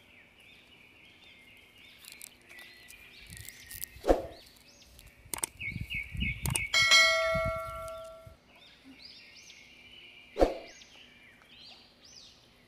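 Small birds chirping over and over, with a sharp knock about four seconds in and another about ten seconds in. About seven seconds in, a single bell-like clang rings on for a second or so and is the loudest sound.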